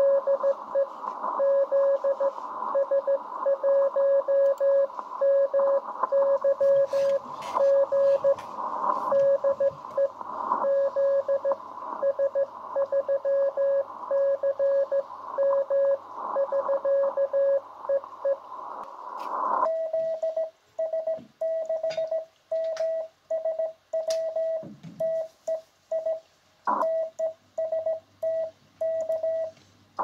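Morse code (CW) tones from an amateur radio transceiver's speaker, a keyed beep of about 600 Hz over band static. About twenty seconds in, the static cuts off suddenly and a clean, slightly higher-pitched keyed tone carries on with silent gaps: the transceiver's sidetone as the operator sends on the paddle key.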